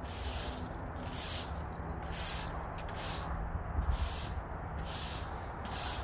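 A broom sweeping dry leaves and twigs across paving stones, with a hissing stroke about once a second.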